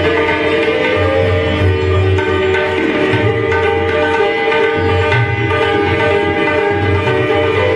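Sitar and tabla playing Hindustani classical music together: the sitar's plucked melody rings over sustained string tones, with the tabla's deep bass-drum strokes sounding again and again underneath.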